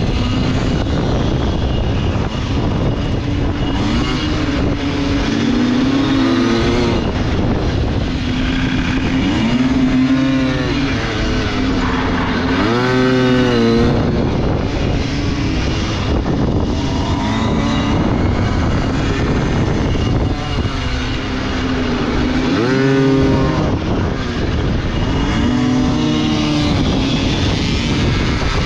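Pit bike engine heard from the rider's own bike, revving up hard and dropping back off the throttle several times as it goes through the corners.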